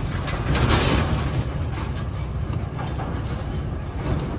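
Low, steady vehicle rumble, with a few light ticks in the second half.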